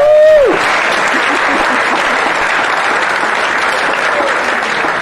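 An audience applauding steadily in a hall, with one voice giving a short whoop right at the start.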